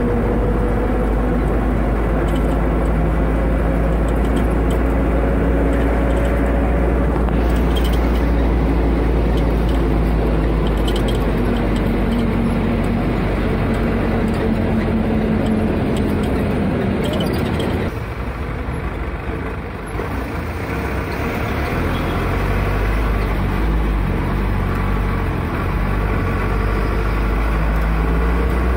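Motor vehicle engine and road noise heard from inside the cabin while driving: a steady engine drone whose pitch sags slowly, easing off about eighteen seconds in and then picking up again.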